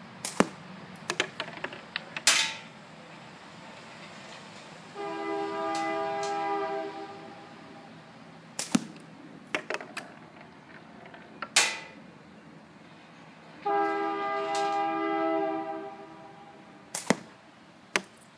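Sharp knocks of 7/16-inch steel balls shot from a slingshot striking the wooden catch box, several a few seconds apart, some followed by quick small rattles. A horn sounding a steady chord twice in the background, about two seconds each.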